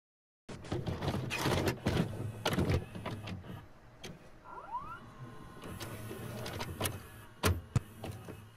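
Video-cassette recorder tape mechanism: a run of clicks and clunks as the tape loads, a short rising motor whirr about halfway, and two sharp clunks near the end.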